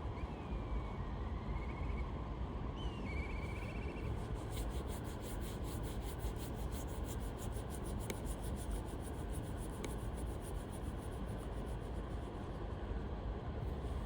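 Steady riverside rumble of flowing water and wind. A few small bird chirps come in the first few seconds, then a fast, even high-pitched pulsing runs for several seconds.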